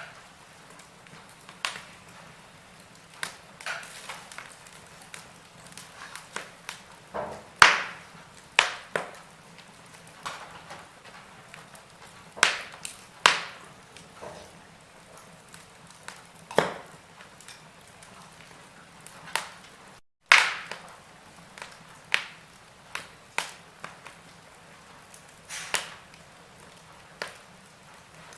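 Wood fire in a fireplace crackling: irregular sharp pops and snaps, a few loud and most faint, over a low steady hiss. The sound cuts out for a split second about two-thirds of the way through.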